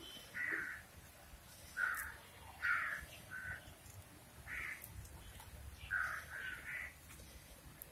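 Crows cawing: about eight short harsh caws, some coming in quick runs of two or three.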